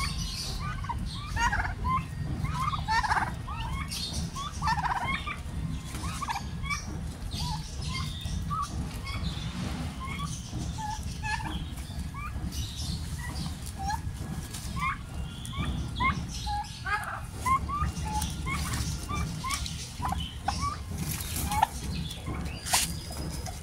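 Domestic turkeys calling during mating: many short, rising chirps and yelps, repeated throughout, over a low steady rumble. A brief rustle of shaken feathers comes near the end.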